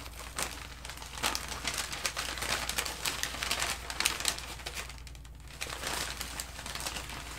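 White packing paper crinkling and rustling as it is unwrapped by hand, in irregular crackles with a brief lull about five seconds in.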